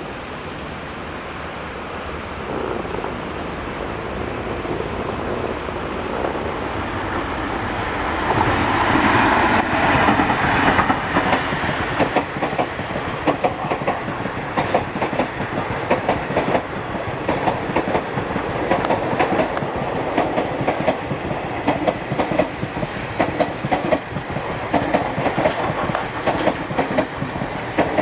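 Indian Railways train approaching and running past, growing louder to a peak about a third of the way in. Then the wheels clack over the rail joints in a fast, steady clickety-clack as the coaches go by.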